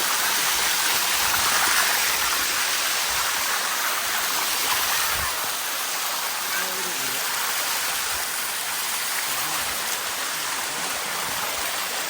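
Steady rushing of water cascading over the rock of a waterfall. Faint voices come and go in the second half.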